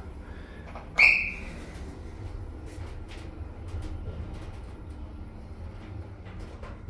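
Otis Gen2 lift's alarm button pressed in an alarm test: a single short, high-pitched beep about a second in, over the low steady hum of the car.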